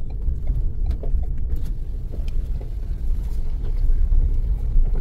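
Low, uneven rumble of a car heard from inside the cabin, its engine running as it rolls slowly.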